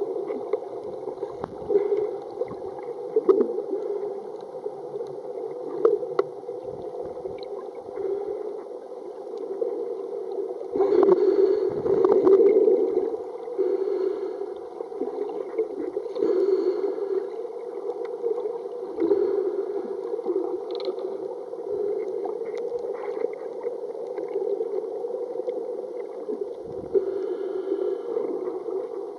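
Muffled underwater noise picked up by a submerged camera: a steady dull rush of moving water, with louder swishing surges now and then, the biggest about eleven to thirteen seconds in.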